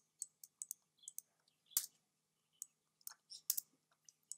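Computer mouse clicking: an irregular run of sharp, fairly faint clicks, the loudest about two seconds and three and a half seconds in.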